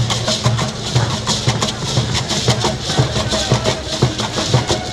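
Traditional procession drumming: deep drum strokes at a steady two to three a second, with rattling percussion on top and crowd hubbub throughout.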